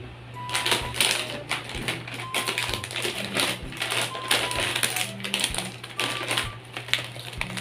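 Foil-lined plastic snack-chip bag crinkling and rustling as it is handled and tipped up, a dense run of sharp crackles.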